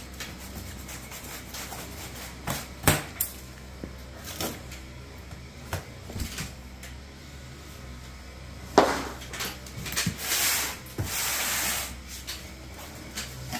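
Cardboard box and its packing being handled as it is opened: scattered knocks and clicks, then a loud knock about nine seconds in followed by a few seconds of scraping and rustling as packing rubs against the cardboard.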